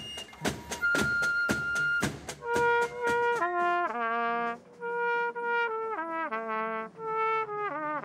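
A flute holding a high note over light clicking, then, from about two and a half seconds in, a cornet playing a melody in short phrases of stepped notes.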